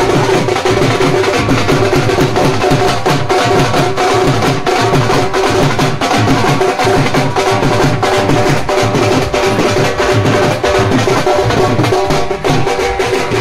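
Dhol drums beaten in a fast, dense rhythm for dancing, with a held melody line running underneath.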